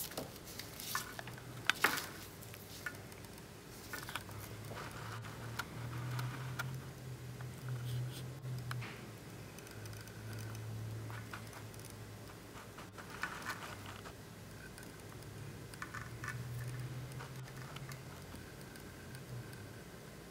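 Close handling noise of beadwork: scattered small clicks and light rustling as fingers work a needle and thread through seed beads on a braided lanyard cord, with the sharpest clicks about two seconds in. A faint low hum comes and goes underneath.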